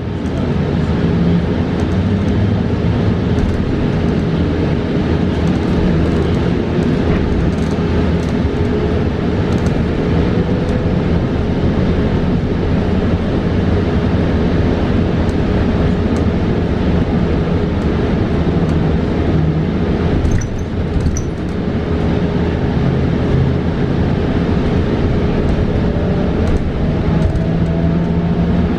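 Cabin noise of a 2022 New Flyer XE40 battery-electric bus on the move: steady road and tyre rumble under a steady hum. A faint whine rises in pitch twice, the electric drive picking up speed.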